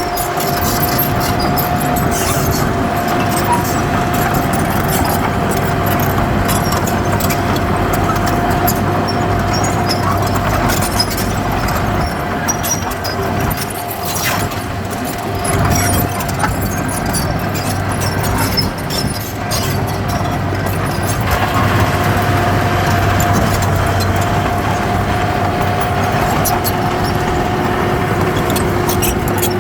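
Heavy diesel earthmoving machinery running steadily, with a steady high whine over the engine noise and occasional clicks and knocks.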